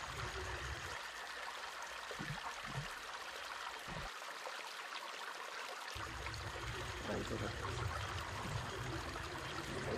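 Steady trickling of running water, with a few soft bumps about two to four seconds in.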